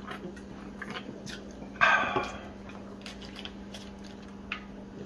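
A single short, loud cry about two seconds in, over a steady low hum.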